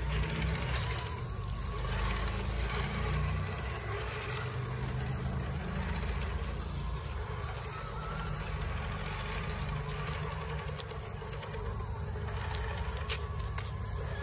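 Radio-controlled crawler trucks' electric motors and gears whining, the pitch rising and falling with the throttle, over a steady low rumble.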